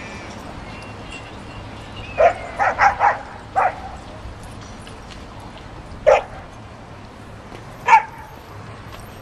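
Dog barking during play: a quick run of five short barks about two seconds in, then single barks near six and eight seconds.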